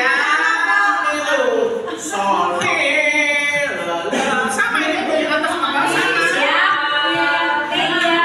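Choir singing a cappella, several voices together with no instruments, rehearsing a song without a break.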